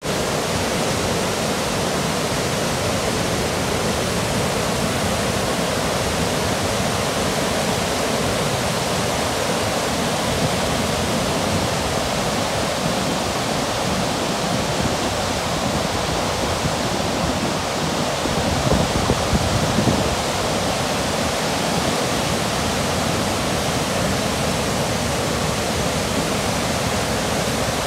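Water pouring over a river weir and churning in the weir pool below: a loud, steady rush. It is briefly rougher and a little louder about two-thirds of the way through.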